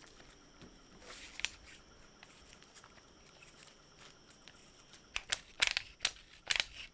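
Light scraping and handling noise from an old rusty hand drill, then a quick cluster of sharp metallic clicks and taps near the end.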